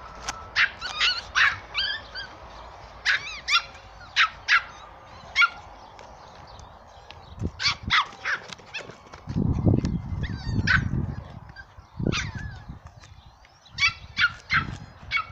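West Highland White Terrier puppy giving many short, high-pitched yips and whimpers in quick succession while knots are carded out of her coat. A low rumble sounds about two-thirds of the way through.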